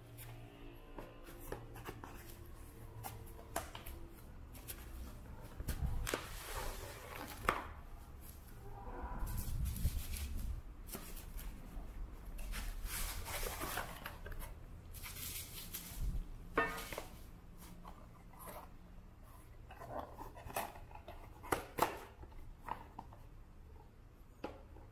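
Cardboard box flaps and insert being handled and bubble-wrapped ceramic shakers slid out and set down: irregular rustling, scraping and crinkling with sharp clicks and a few louder knocks.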